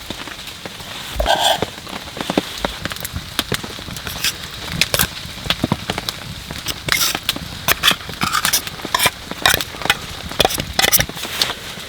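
Rain falling, a steady hiss with many irregular sharp ticks and crackles, denser in the second half.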